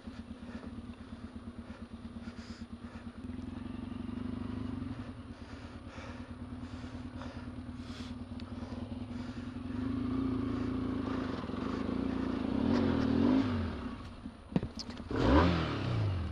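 Yamaha XTZ 750 Super Ténéré parallel-twin engine pulling at low revs on a muddy trail. It is revved harder and rises and falls in pitch from about ten seconds in, then there are sharp knocks and a loud burst of revs near the end as the bike slides and goes down on its side.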